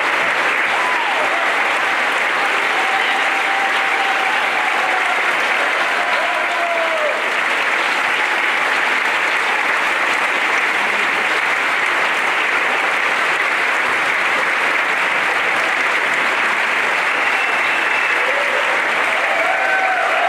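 Concert audience applauding steadily, a dense continuous clapping with a few voices calling out over it.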